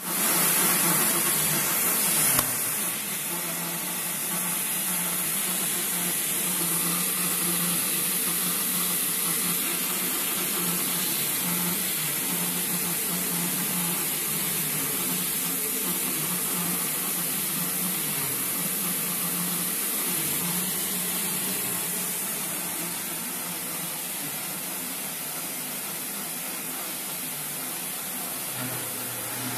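BOPP tape slitting machine running: a steady hiss over a low hum, a little louder for the first two seconds or so.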